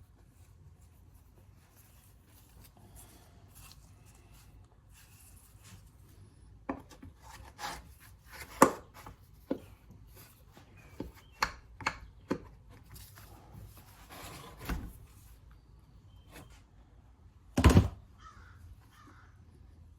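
Irregular clicks and knocks of tools and engine parts being handled during small-engine assembly. They come in a cluster from about a third of the way in, with a heavier thump near the end.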